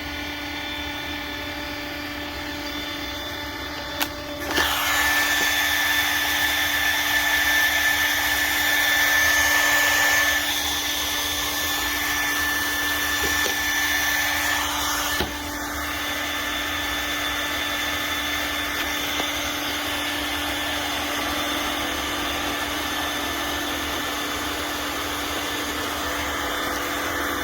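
iRobot Roomba s9+ robot vacuum running with a steady motor hum and whine. After a click about four seconds in, it grows louder with a rushing suction noise for about ten seconds, then settles to a slightly quieter steady run.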